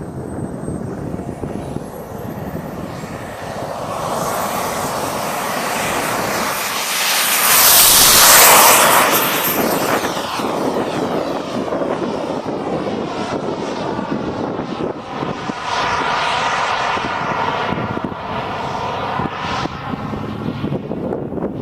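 Turbine engine of a Turbinator RC sport jet: a thin, high whine rises in pitch over the first few seconds as it spools up for takeoff. The jet rush builds to its loudest about 8 seconds in as the plane passes close, then continues with a wavering, sweeping quality as it climbs away.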